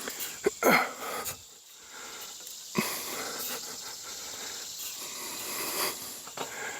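Metal ladder stand knocking and squeaking as a man climbs it and it shifts under him, with his heavy breathing. The loudest knocks come in the first second and another near three seconds in. The climber puts the shifting down to one foot of the stand sitting on a rock and not settling.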